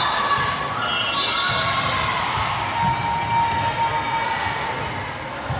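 Indoor volleyball play echoing in a large sports hall: repeated thuds of balls being hit and bouncing on several courts, over a background of players calling out and spectators talking.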